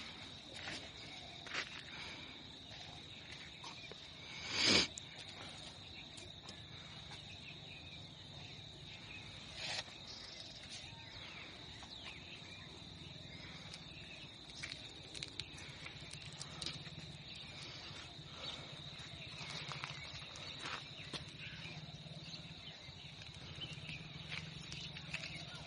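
Insects calling in a steady high-pitched drone, with scattered faint clicks and one short, louder noise about five seconds in.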